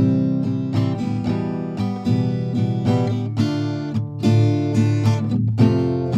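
Background music: an acoustic guitar playing, with a run of plucked notes and strums.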